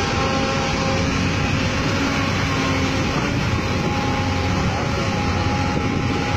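Hyundai R220LC-9S excavator's diesel engine running steadily under working load, a constant hum with a steady engine note, as the machine swings back from loading the truck.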